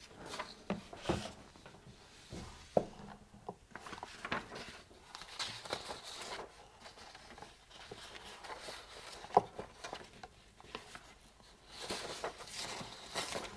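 Scattered clicks, knocks and rustling of tools being handled and sorted at a steel tool chest, with one sharper knock about two-thirds of the way in.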